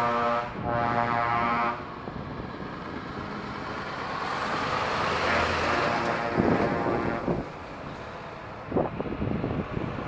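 A truck's air horn sounds for the first second and a half and cuts off sharply. Then a heavy truck with a trailer passes close by, its diesel engine and tyres building to their loudest around the middle, with a few short loud bursts near the end.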